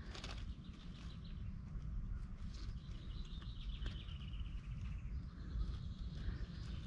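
Faint outdoor ambience: a steady low rumble on the microphone with distant birds calling. Around the middle, one drawn-out call slowly falls in pitch.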